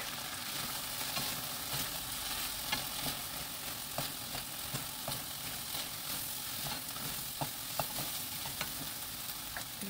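Sliced onions and chilies sizzling in a hot frying pan as they are stir-fried with two wooden spatulas. A steady hiss runs under irregular light scrapes and taps of wood on the pan.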